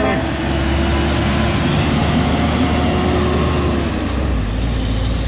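Diesel engine of a Kenworth T800 tractor-trailer with a dump trailer, pulling uphill through a tight curve as it passes close by. The engine note drops slightly about four seconds in.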